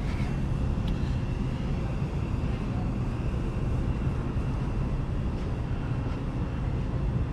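Steady low outdoor rumble with a faint, steady high-pitched tone above it.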